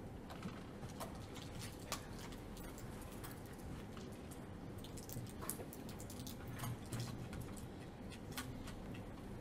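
Faint scratching and clicking of a marker writing on a whiteboard, a few light strokes scattered through, over a steady low room hum.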